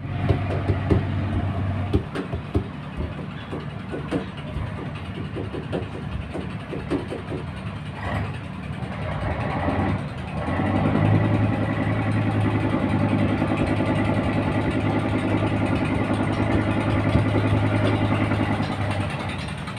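A boat's engine running, with irregular knocks and clatter over a low hum in the first half. About halfway through the engine gets louder and steadier, then fades near the end.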